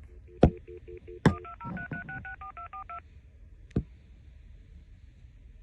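AT&T E5960C cordless phone redialing a stored number: a few short low beeps and sharp clicks, then a quick string of about a dozen touch-tone digits sent automatically in under two seconds, followed by another click and faint line hiss.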